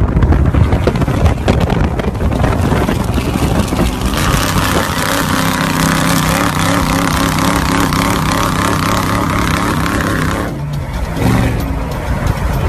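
Heavy wind and road noise from a moving vehicle, with a vehicle engine running at steady high revs alongside an off-road race truck; about ten and a half seconds in, the engine note drops away.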